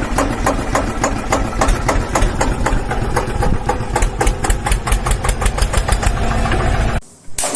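An engine idling with a steady rumble and an even ticking knock, about six or seven ticks a second, that cuts off suddenly near the end.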